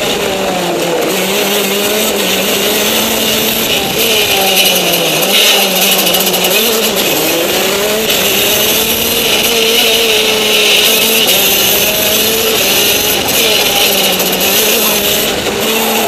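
Go-kart engine heard from on board while lapping a track at speed, its pitch dipping and climbing again and again as the driver lifts off into corners and accelerates out of them.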